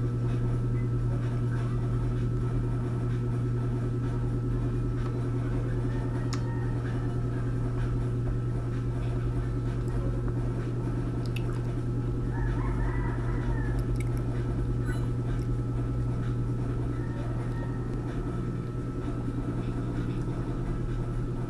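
A steady low hum throughout, with soft squishy sounds of a ripe banana being peeled and chewed.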